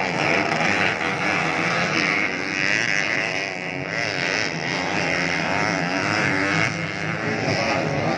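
Several motocross bikes' engines running and revving on the dirt track, many engine notes overlapping, their pitch rising and falling as the riders work the throttle.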